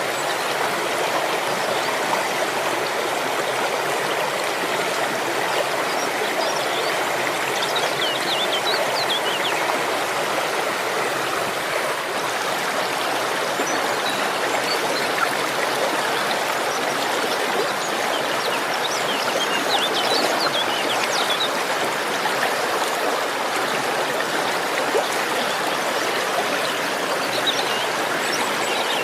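Waterfall: falling water rushing and splashing in a steady, even sound.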